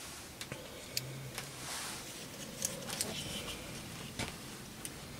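Quiet room background with a few faint, sharp clicks and ticks at irregular intervals, about a second apart.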